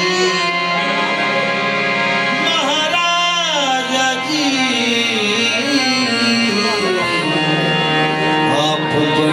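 Qawwali music: a male lead singer draws out long phrases whose pitch slides up and down, over steady held tones from the accompaniment.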